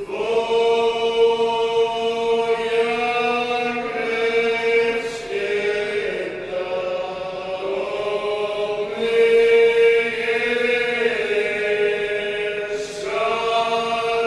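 Sustained vocal chanting: long held notes that shift pitch every few seconds.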